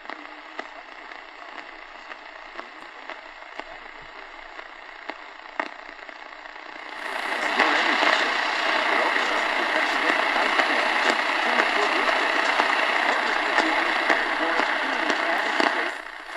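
Static hiss from a Realistic DX-350 portable radio's speaker on the medium-wave AM band, tuned to a weak, distant station that is barely coming in. The hiss grows much louder about seven seconds in and stays up, with a brief dip near the end.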